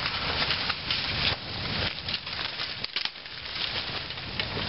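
Irregular rustling and crunching of leaf litter, twigs and soil being handled.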